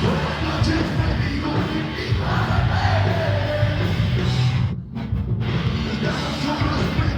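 Live rock band playing loudly, with a short break about five seconds in.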